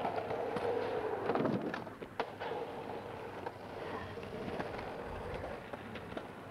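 Skateboard wheels rolling on an asphalt road, the rolling falling in pitch as the board slows, then a sharp clack about two seconds in and a few fainter knocks.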